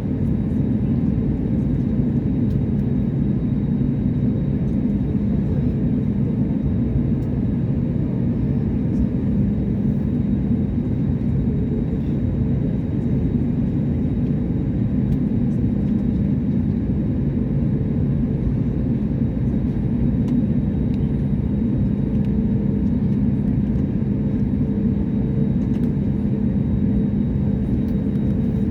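Steady airliner cabin noise: an even rumble of engines and airframe with a low droning hum, holding level without rising or falling.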